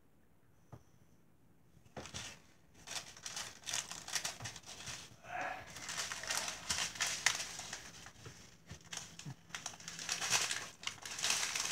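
Plastic packaging crinkling and crackling as it is handled and unwrapped, beginning about two seconds in and growing louder near the end.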